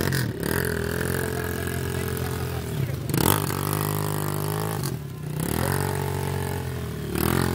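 Dirt bike engine running and revved up in about four bursts while its rear wheel spins in deep mud and riders push the bike through the bog.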